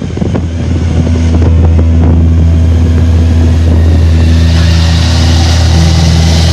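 Suzuki V-Strom motorcycle engine running at steady revs, holding one pitch. A rushing noise grows over it from about four seconds in.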